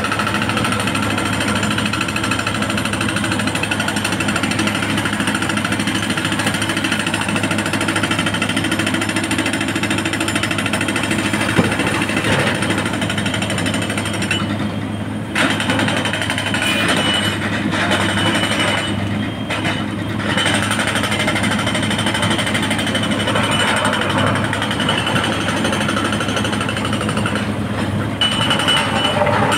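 Sany SY225 crawler excavator's diesel engine running steadily under working load while it digs and loads rock.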